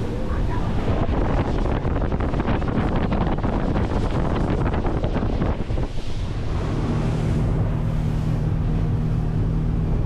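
Speedboat running at speed over the water, with heavy wind buffeting the microphone and crackling spray for the first six seconds. After that it settles into a steadier low engine hum.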